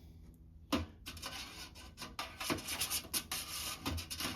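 Small carburetor parts being scraped and shuffled around while someone searches through a chem-dip cleaner can: a quick run of rasping scrapes with a couple of dull knocks.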